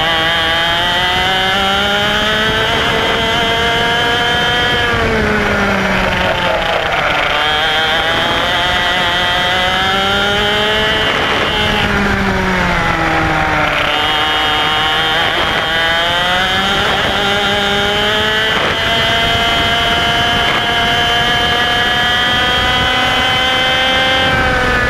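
IAME X30 125cc single-cylinder two-stroke kart engine at racing speed. Its revs climb steadily along the straights and drop sharply three times as the kart slows for corners, the last near the end.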